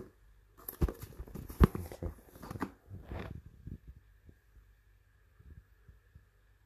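Crinkling and a few sharp knocks from a dishwasher-tablet pack being handled and turned over, lasting about three seconds, with one loud knock in the middle.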